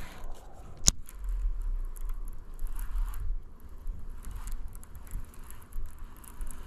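Casting and retrieving with a baitcasting rod and reel: a single sharp click about a second in, then a quiet, steady retrieve with faint ticking and scraping over a low rumble.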